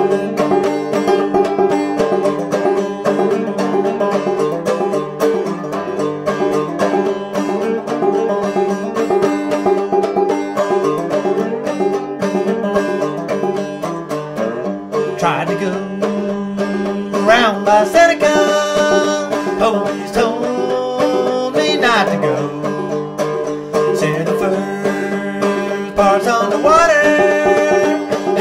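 Background music in a bluegrass style, led by plucked strings. From about halfway a higher melody with sliding, bending pitches joins on top.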